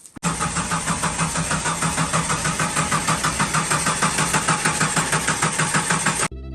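Jeep Cherokee XJ engine turning over on the starter without catching, an even rhythmic cranking that stops suddenly after about six seconds. This is a crank-no-start, here put down to a failed camshaft position sensor (code P0340).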